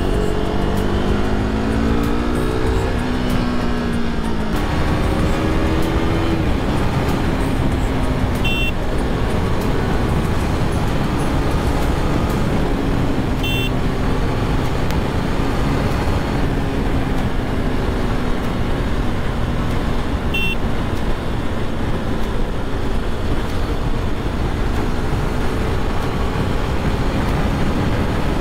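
KTM RC390 single-cylinder engine pulling through the gears: its pitch rises, drops at a shift about four seconds in, rises again, then settles into a steady cruise, with heavy wind rush on the microphone. Three short high beeps sound several seconds apart.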